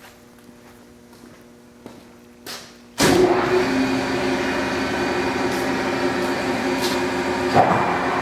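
1963 Monarch engine lathe, quiet apart from a faint hum, then starting abruptly about three seconds in and running steadily and loudly, its motor and geared headstock giving a steady whine.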